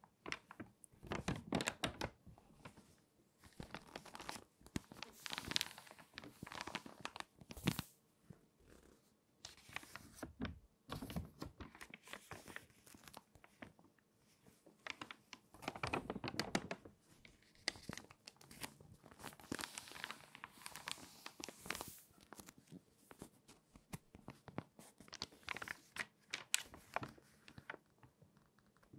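Water-damaged magazine pages being turned and handled, the stiff paper crinkling and crackling in irregular bursts with short pauses between them.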